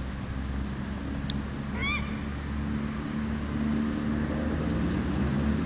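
A paradise shelduck gives one short, high call about two seconds in, rising then falling in pitch, over a steady low hum.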